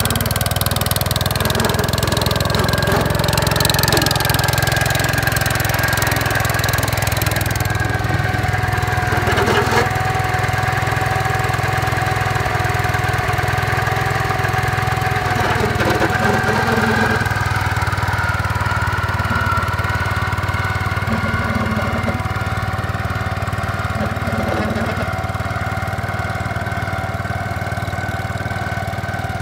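Gravely 5665 walk-behind tractor's engine running steadily, with a steady whine over the engine hum, as it works the MA210 snow cannon.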